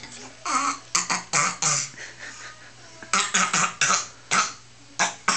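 A toddler making a silly breathy throat sound in short repeated bursts: a run of about five, a pause, then another run of about five and two more near the end.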